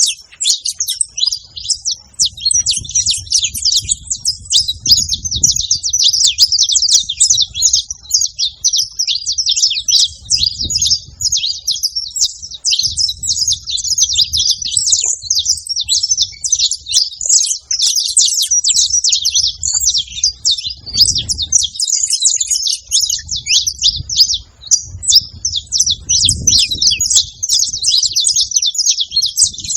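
Several saffron finches chirping and singing together: a dense, continuous stream of quick, high, overlapping chirps.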